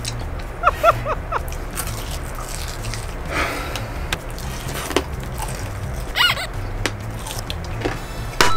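Biting and chewing crisp fried chicken: sharp crunching snaps of the crispy coating over quiet background music, with a few short high squeaky sounds about a second in and again about six seconds in.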